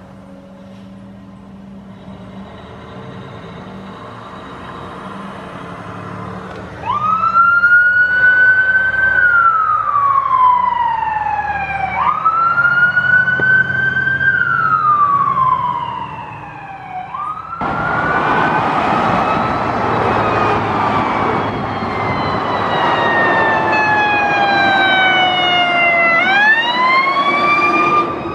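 Pierce Enforcer fire engine's engine running as it pulls out, then its wail siren starts about seven seconds in, each cycle rising quickly and falling slowly. About two-thirds through a loud rushing noise joins the siren, which gives one long falling wail before rising again near the end.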